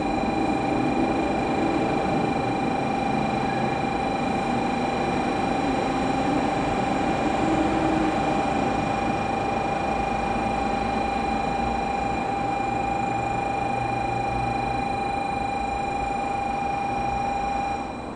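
N700 series Shinkansen train rolling slowly into the station with a steady rumble as it slows to stop. A steady high electronic buzzer tone sounds over it and cuts off suddenly near the end.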